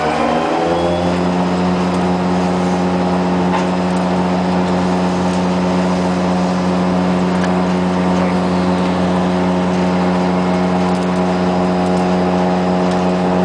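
Heavy machinery running with a steady, droning hum. Its pitch settles within the first second and then holds, with a few faint clicks on top.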